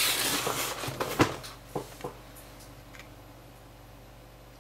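Cardboard box and packaging being handled: rustling and scraping for about a second, a sharp knock about a second in and a couple of light taps, then only a faint low hum.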